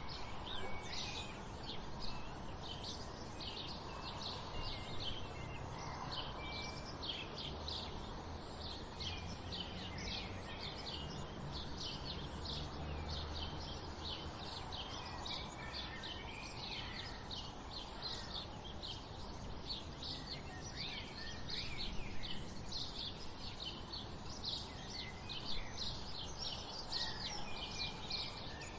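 Dawn chorus of many small birds, short high chirps overlapping without pause, over a low steady background rumble.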